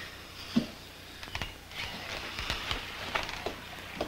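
Faint footsteps and a few light knocks scattered through the quiet, the clearest about half a second in.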